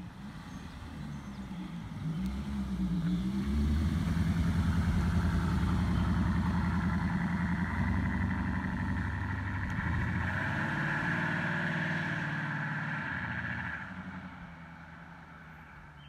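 2015 Chevrolet Camaro RS engine and exhaust as the car drives past and pulls away: the engine note wavers up and down about two seconds in, is loud through the middle and fades near the end as the car moves off.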